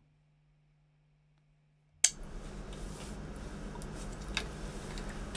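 Near silence with a faint steady hum for about two seconds, then a sharp click and low room noise with a few small clicks and taps.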